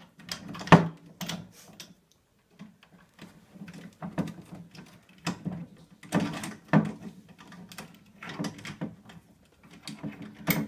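Allen key turning a scooter's compression screw into the fork through the SCS clamp: irregular metal clicks and knocks, the loudest about a second in.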